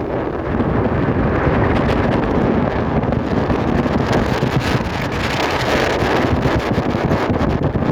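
Wind buffeting the microphone: a loud, continuous rush of noise that wavers in strength.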